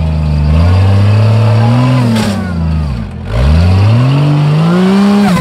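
Off-road 4x4 engine revving hard, its pitch surging up and down. About three seconds in the revs drop off sharply, then build steadily again and fall away near the end.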